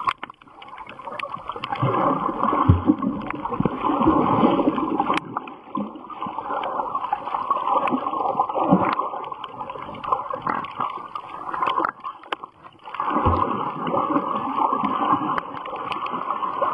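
Muffled rushing and gurgling water noise heard through a camera held underwater in shallow water, with scattered sharp clicks. The noise dips briefly near the start and again about three-quarters of the way through.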